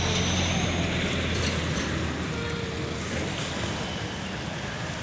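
Busy city street traffic: a steady rumble of passing motorbikes and cars, with a low hum underneath.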